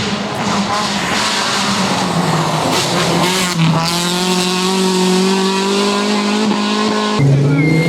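Rally car engine running hard at high revs, its pitch climbing a little about halfway through, then the sound changes abruptly near the end.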